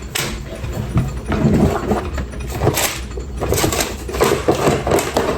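Handling noise from assembling a ring light and tripod: irregular clicks, knocks and rattles of plastic parts, over a low steady hum.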